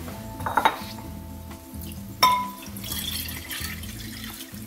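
Glassware clinking twice on a stone countertop, the second clink louder and ringing, then water poured from a glass measuring cup splashing into a glass bowl.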